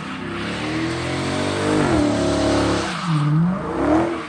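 Truck engine revving up and down during a burnout, with the spinning tires squealing. The revs climb about half a second in, drop sharply around two seconds in, then rise and fall twice more.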